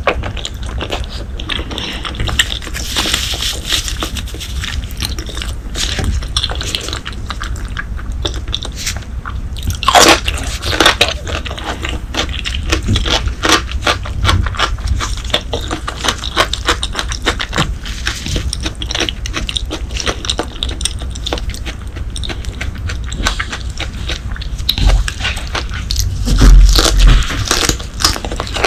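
Close-miked eating of braised pork leg: a person biting and chewing, with many irregular crunchy clicks and scrapes. A louder burst of bites about ten seconds in, and a heavier low thud near the end.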